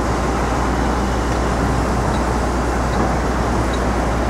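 Steady city street traffic noise, a continuous low rumble of passing vehicles with no single standout event.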